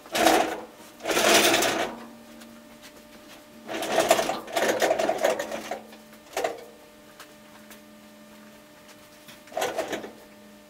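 Five bursts of rapid mechanical rattling from work on a stripped car body, two of them about a second and a half long, over a steady low hum.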